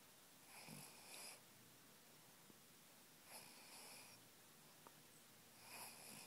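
Pug breathing, three faint slow breaths about two and a half seconds apart.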